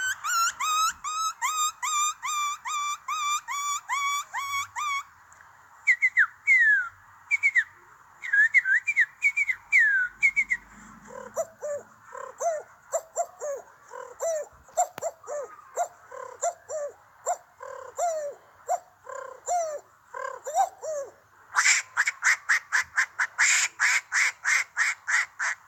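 A man imitating bird calls with his mouth, one call type after another. First comes a run of quick repeated chirps, then a string of sharply falling whistled notes, then a longer series of lower, shorter chirps. Near the end there is a fast, loud burst of bright chirps.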